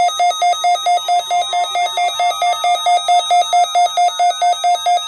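Weather radio receiver's alarm beeping rapidly and evenly, about six beeps a second, set off by the NOAA Weather Radio required weekly test. A fainter steady warning tone runs underneath.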